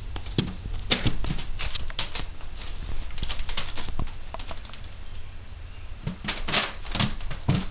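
Two kittens wrestling: irregular scuffling, pattering and soft thumps of paws and bodies, in bursts about a second in, around three to four seconds in, and again near the end.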